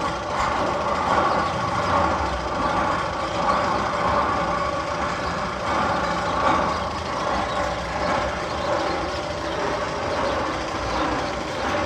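Steady mechanical rumble with a hiss, one of the sound effects played over loudspeakers in the Magnum XL-200 roller coaster's tunnel.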